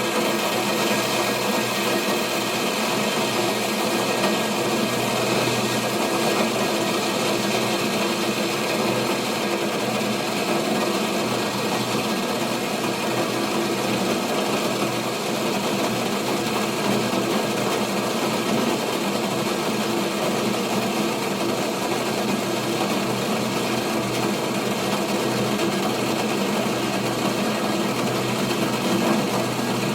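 Water being heated on a stove toward the boil, a steady, unbroken bubbling noise.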